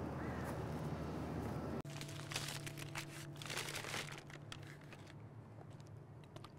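A paper bag crinkling around a bottle as it is handled and lifted, in crackly rustles for about the middle two seconds, over a low steady hum.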